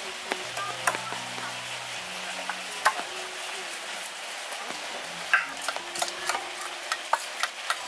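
Knives scraping and scaling fresh fish on boards: a steady scratchy hiss with irregular sharp clicks and taps of blades.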